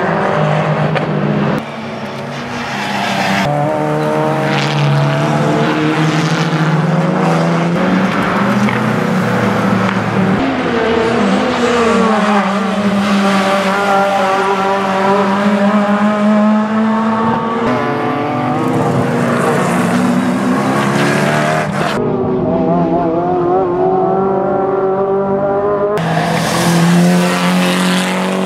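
Racing car engines at full throttle on a circuit, their pitch rising through the gears and dropping on the lift-off, with some tyre squeal. The sound jumps abruptly several times as one car gives way to the next.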